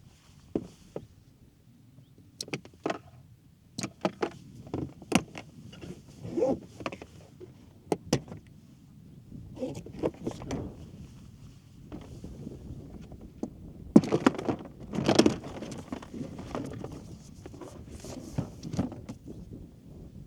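Gear being handled: irregular clicks, knocks and rustling, loudest about fourteen to sixteen seconds in.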